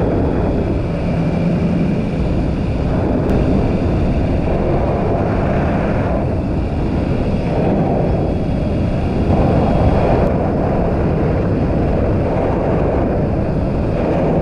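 Motorcycle running at road speed, its engine buried under a steady rush of wind on the microphone.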